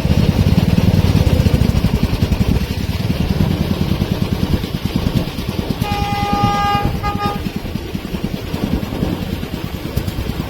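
A rail vehicle's engine running close by with a rapid pulsing beat. Its horn sounds a long blast about six seconds in, then a short toot right after.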